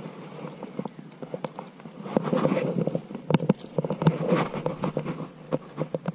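Water hyacinth stems and leafy branches rustling and crackling as they are pushed aside and handled, with irregular clicks and snaps. It gets busier about two seconds in and again around three to four seconds.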